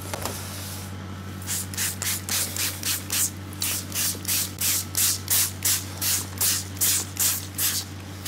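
Pastry brush stroking egg wash onto proved brioche dough: short bristly swishes at about three a second, starting about a second and a half in, over a steady low hum.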